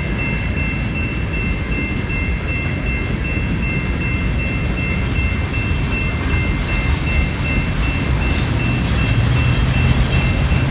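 Freight train of BNSF hopper cars rolling through a level crossing, steel wheels rumbling and clattering on the rails, over the steady ringing of the crossing's General Signals Type-2 electronic bell. A low hum grows louder near the end.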